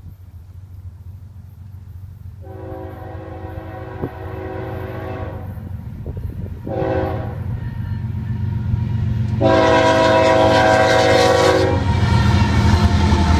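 Florida East Coast freight train's lead GE ES44C4 diesel locomotive sounding its multi-note air horn for the grade crossing: a long blast, a short one, then a louder long one. Under the horn, the diesel engines rumble louder and louder as the train approaches and reaches the crossing near the end.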